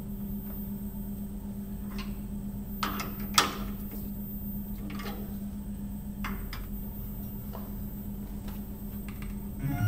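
Steady low hum of the milling machine, with scattered clicks and knocks as the Haimer 3D sensor is handled in the spindle. The loudest click comes about three and a half seconds in.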